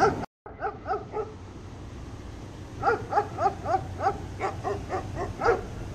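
A dog barking repeatedly in quick short barks: a few just after the start, then a longer run of about a dozen in the second half.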